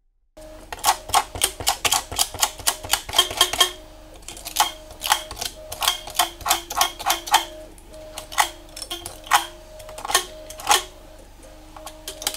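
Sandpaper rubbed back and forth over the rusty metal battery contacts and springs of a bathroom scale, scouring off the rust. It comes as quick scratchy strokes, about five a second, in bursts with short pauses, starting about half a second in.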